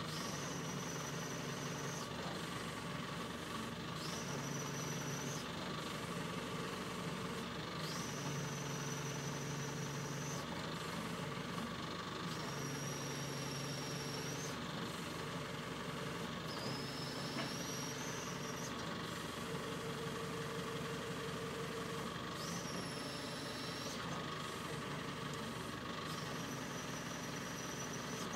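Telescopic handler engine running steadily, with a high whine that comes in and cuts out about seven times, each for a second or two.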